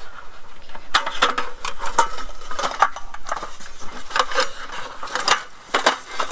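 Aluminum slats of a GSI Outdoors Macro roll-up camp table clinking and rattling as a support stick is fed through them, catching on the panels. An irregular run of metallic clicks starts about a second in.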